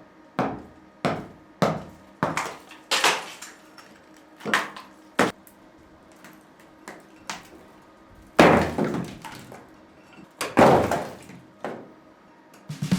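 Loose stones and rubble being knocked out of a crumbling masonry arch: a dozen or so sharp knocks and clatters, with two heavier crashes of falling stone in the second half, about two seconds apart.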